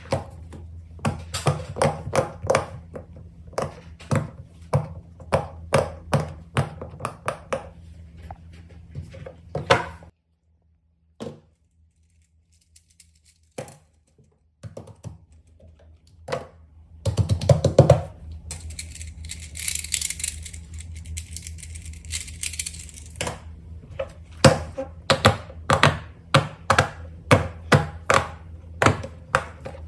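Fidget toys being handled: a run of sharp pops and clicks, several a second, stopping for a few seconds near the middle. A stretch of hiss or rustle follows for a few seconds.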